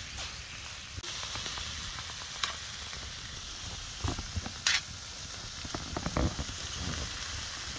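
Chopped potato, onion and tomato sizzling as they fry in a titanium pan on a wood-burning stove, a steady hiss broken by a few sharp clicks and knocks, the loudest a little past halfway.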